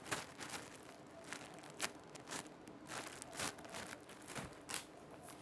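Crinkling and rustling from squishy toys being handled, in short irregular crackles.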